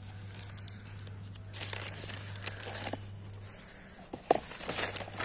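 Cardboard shipping box and its packaging being pulled apart and torn by hand: irregular bursts of crinkling and tearing, with a sharp crack about four seconds in.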